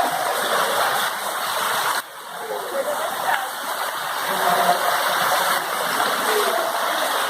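Heavy rain pouring, with rainwater splashing and running off in a steady rush. The sound dips briefly about two seconds in.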